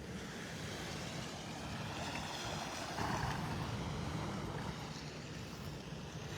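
Gulf surf washing onto the beach: a steady rush of noise that swells briefly about three seconds in.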